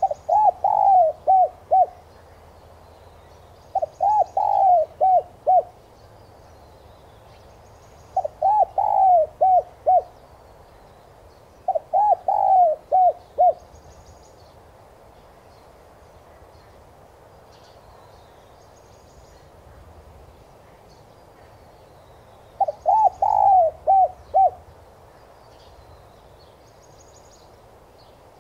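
Spotted dove cooing in five phrases, each a quick run of five or six coos with the last notes shorter. Four phrases come about every four seconds, then there is a long pause before the fifth near the end.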